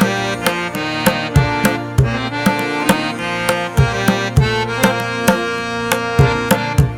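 Background music: a pitched melody over a steady drum beat, its hand-drum strikes like tabla.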